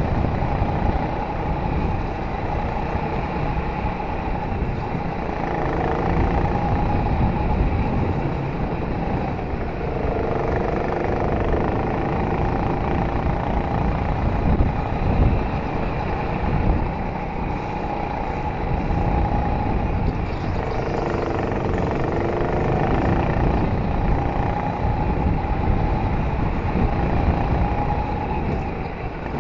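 Racing go-kart engine running hard, heard from the kart, its pitch rising and falling several times as it accelerates and lifts through the corners, over a steady low rush of wind and track noise.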